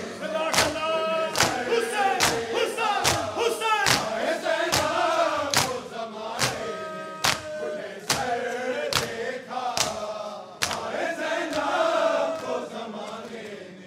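Matam: a crowd of men beating their chests with open palms in unison, about two strikes a second, under a group of men chanting a noha's mournful refrain.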